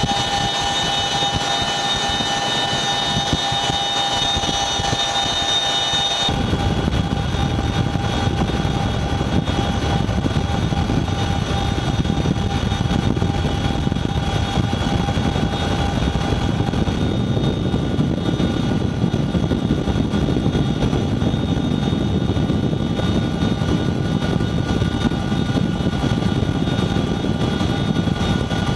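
Boeing CH-47 Chinook tandem-rotor helicopter with its twin turboshaft engines running: a steady whine of high tones for about six seconds, then an abrupt change to a deeper, fuller rotor and engine noise that carries on steadily.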